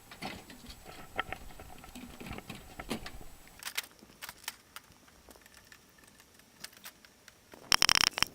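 Wiring being pulled and cut out of an air conditioner unit by hand: scattered clicks, snips and light metallic knocks. A brief loud metallic rattle comes near the end.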